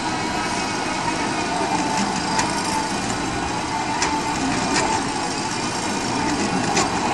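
Quarry chain saw machine for cutting marble, running steadily as its cutting chain works into the stone block, with a steady whine and a few scattered sharp ticks.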